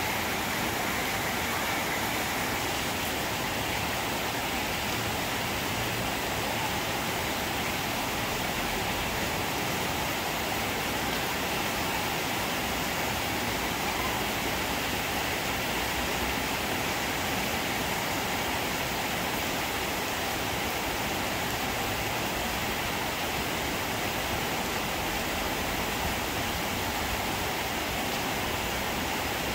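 Steady rain falling on trees and foliage, an even, unbroken hiss with no single drops or other events standing out.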